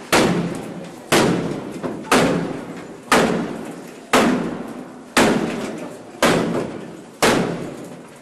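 Police battering a closed wooden apartment door to break it open: eight heavy blows, about one a second, each a sharp bang that rings out and fades.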